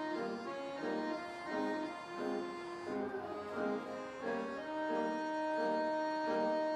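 Instrumental passage of the song with no voices: the accompaniment plays repeated chords about twice a second, and a long melody note is held over them from about two-thirds of the way in.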